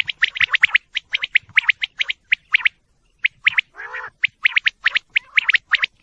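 Female quail calling in quick runs of short, high chirps, with a brief pause about three seconds in. One lower, longer call comes about four seconds in.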